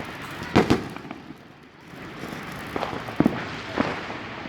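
Fireworks going off in a series of sharp bangs: a loud double bang about half a second in, then a quieter stretch, then several more bangs around three seconds in.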